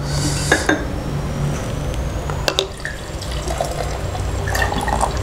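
A plastic soft-drink bottle opened with a short hiss of escaping gas, a few light clicks of bottles against glass mugs, then carbonated soft drinks poured into glass mugs, splashing and fizzing over the last second or so.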